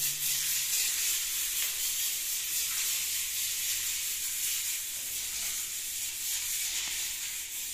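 A hand-held sponge rubbing freshly applied micro-grain decorative plaster on a wall, spreading and working the wet coat. It makes an even, high, scratchy noise.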